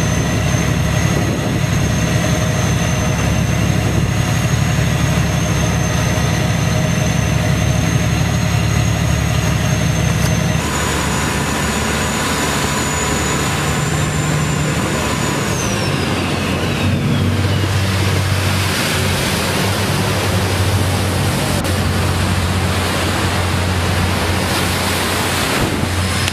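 Boat engine running steadily, heard on board a small boat at sea, with wind and water noise over it. The sound changes abruptly about ten seconds in, and a thin high whine falls in pitch a few seconds later.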